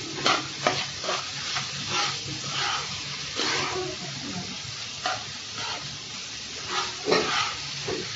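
Steel spatula scraping and stirring chopped-vegetable filling in a nonstick kadhai, the vegetables sizzling as they fry. The strokes come in an uneven string, one louder scrape about seven seconds in.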